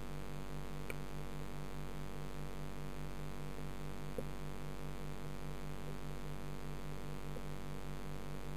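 Aquarium filter pump's steady hum heard underwater, a low tone pulsing about four times a second, with two faint clicks about one and four seconds in.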